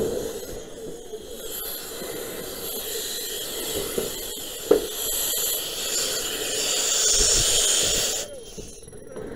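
A steady hiss that builds over several seconds and then cuts off suddenly about eight seconds in, with a single sharp knock about halfway through.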